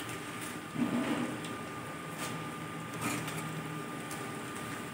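Pork frying in oil in a steel kadai: a steady low sizzle under a thin steady high tone. A few knocks and scrapes, the loudest about a second in and more around two and three seconds, as axone paste is put into the pan.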